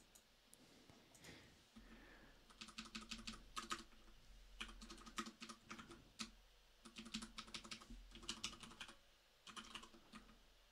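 Typing on a computer keyboard: several bursts of quick keystrokes with short pauses between them, starting about two and a half seconds in.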